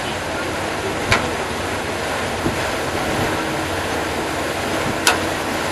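Steady rushing noise of a Batobus water bus under way, its engine and the water blending into one even wash. Two sharp clicks cut through it, about a second in and again about four seconds later.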